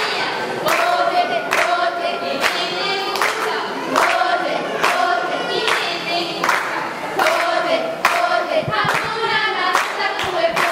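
Children's choir singing together while clapping along in a steady beat, roughly one clap a second.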